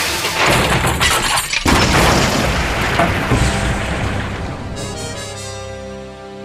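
A train-crash sound effect over background music: a run of smashing, shattering crash hits in the first two seconds, then the music alone, slowly fading.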